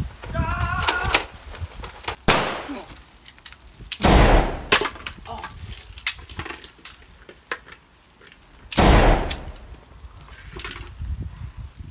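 Gunshot sound effects for a mock battle with toy guns. A sharp crack comes a couple of seconds in, then two heavy blasts about five seconds apart, each dying away over most of a second.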